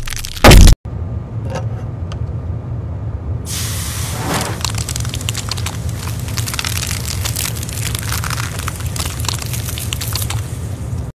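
A loud, sharp blow of a heavy metal head on a steel screw set in wood, about half a second in, cutting off abruptly. Then a steady low hum, joined after about three and a half seconds by a dense, fine crackling.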